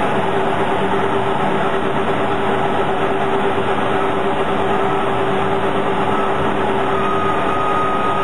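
Brentwood BWS 400-1250 single-shaft shredder running, its cutter rotor turning: a loud, even mechanical noise with a steady hum.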